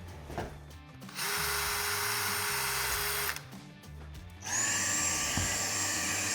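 Cordless drill-driver running in two bursts while backing out screws from an old alarm sensor: one lasting about two seconds, then a second that spins up with a short rise in pitch about four and a half seconds in and keeps running.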